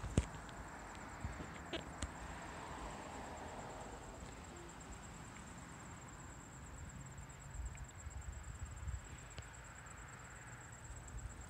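Faint outdoor ambience with a steady, high-pitched insect trill running throughout, and a few sharp clicks near the start.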